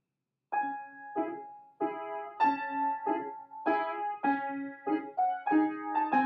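Piano music starts about half a second in: a slow succession of separate notes and chords, each ringing and fading before the next.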